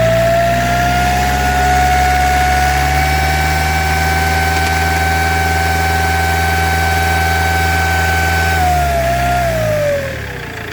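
Iveco 2.3 16v four-cylinder turbodiesel held at raised revs with a loud, high, steady turbo whine that climbs slightly at first; near the end the revs drop and the whine falls away. The whine comes from a blown turbocharger whose wheel is hitting against the housing.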